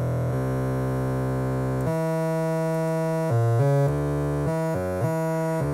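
Modular synthesizer oscillator playing a melody of held notes, its pitch set by control voltage from an RP2040 board's DAC, changing note every second or so at first and faster in the second half. The tone is clean, without the ground buzz that had been plaguing the build.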